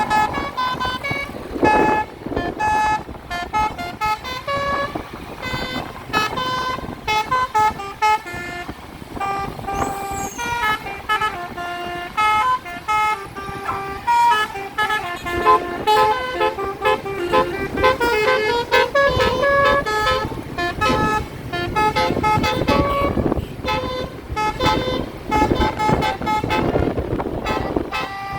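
Tour bus's multi-tone 'basuri' telolet air horn playing a fast tune of short notes, over the bus's engine and road noise.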